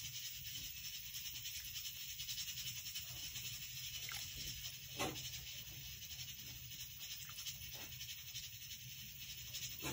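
Silicone spatula stirring radish soup in a pot, with a couple of soft taps against the pot, over a steady faint hiss.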